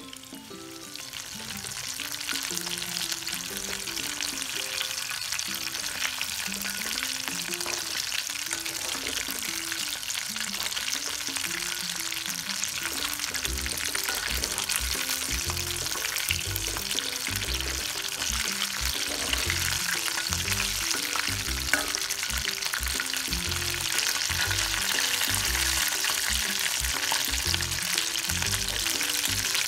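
Flour-coated Indian anchovies deep-frying in hot oil in a steel wok: a dense crackling sizzle that swells over the first couple of seconds and then holds steady, with a slotted spoon stirring the fish now and then and one sharp click about two-thirds of the way through.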